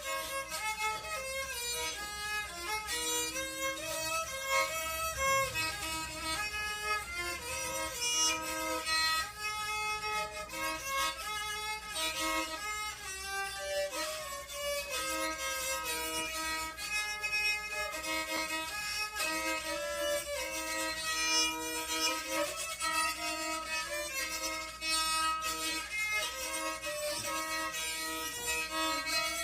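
Rabeca, a Brazilian folk fiddle, bowed in a continuous melody of changing notes.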